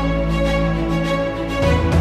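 Background music: sustained held chords, shifting to new notes about one and a half seconds in.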